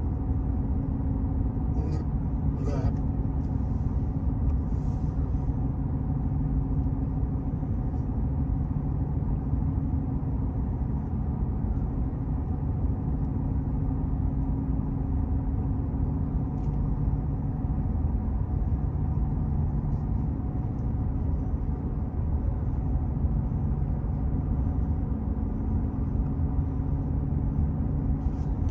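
Steady low rumble of a car driving at an even speed, engine and tyres on the paved road, heard from inside the car.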